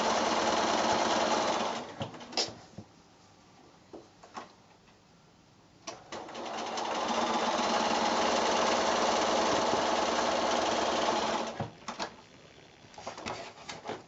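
Bernina electric sewing machine stitching paired fabric squares: one run of about two seconds, a pause with a few sharp clicks, then a second steady run of about five seconds, followed by more scattered clicks.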